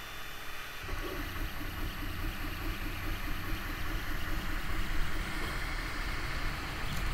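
Steady machine-like running noise with a low rumble, starting about a second in.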